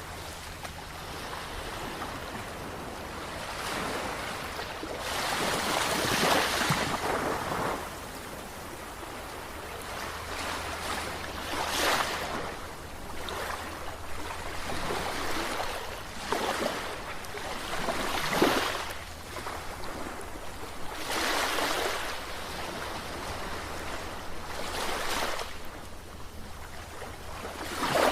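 Sea waves breaking and washing in, a surge of surf every few seconds over a steady wash.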